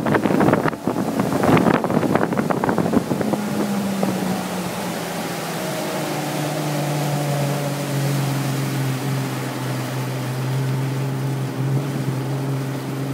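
Johnson 150 outboard motor pushing the boat at speed, with wind buffeting the microphone and water rushing for the first few seconds. Then the throttle comes back: the engine note drops in pitch and settles into a steady, lower running tone.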